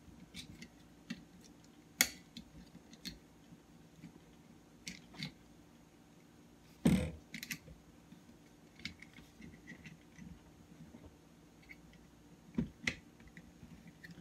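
Scattered clicks and knocks from the Hemmotop 54-inch phone tripod's head as a part is fitted and screwed onto it by hand. A sharp click comes about two seconds in, a duller knock near the middle, and two quick clicks near the end, with light ticks in between.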